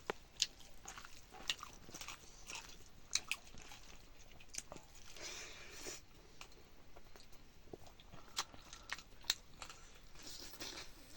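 A person eating at close range: chewing and crunching food, with scattered sharp clicks and smacks.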